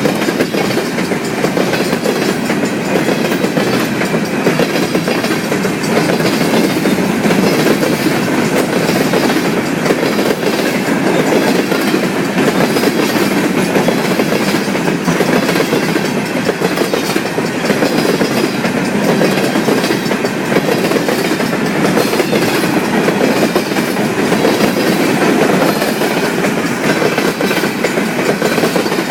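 CN intermodal freight train's cars rolling past steadily, their wheels clacking over the rail joints.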